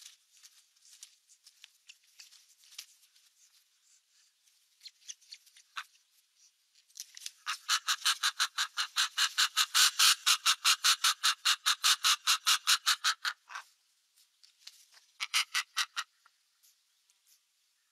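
Osprey chicks giving a rapid series of sharp, high alarm chirps, several a second, rising to a loud run in the middle and then a shorter run near the end, as a raven attacks in the nest.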